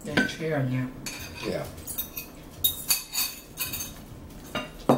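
Metal forks and cutlery clinking and scraping against dinner plates as a meal is eaten, with a series of sharp clinks, the loudest near the end. A short wordless vocal sound comes near the start.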